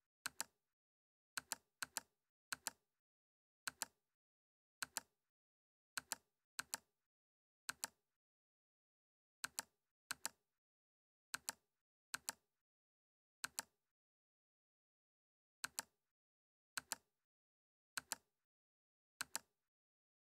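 Sharp, isolated clicks of a computer mouse and keyboard, coming irregularly, often in quick pairs, with dead silence between them.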